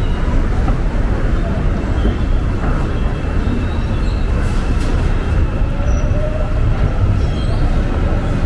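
Subway train rumbling in an underground station: a steady, loud low rumble with a faint rising whine near the end.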